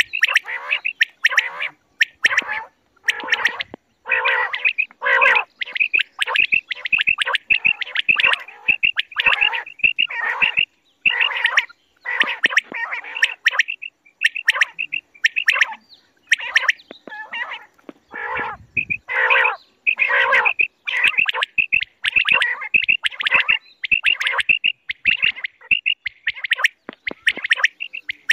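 Quail (batair) calling over and over in quick runs of short, harsh notes, with brief pauses between the runs.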